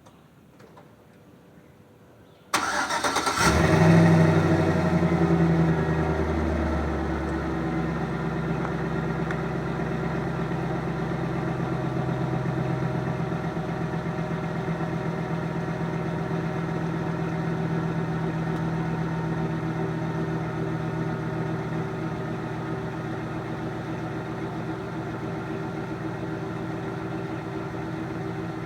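A 2007 Chevy Silverado's 4.8-litre V8 starts about two and a half seconds in. It flares up briefly, loudest a second or so after catching, then settles into a steady idle through the stock factory muffler.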